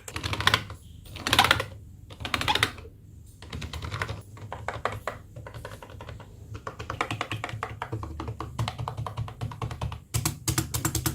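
Rapid typing on a budget membrane keyboard: a dense run of soft key clacks, with three louder clattering bursts of keys struck together in the first three seconds.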